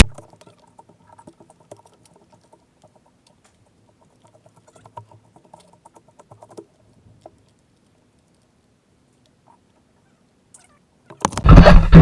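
Faint, scattered small clicks and rattles as a part is fitted back onto a KTM Duke 200 motorcycle after an oil change. Near the end, a loud, full-range noise starts suddenly.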